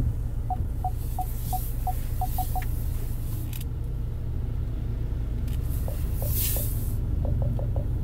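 Inside a car with the engine running: a steady low rumble. Over the first couple of seconds there is a run of short, evenly spaced pitched ticks from the dashboard, about three a second, and a brief hiss comes a little after six seconds.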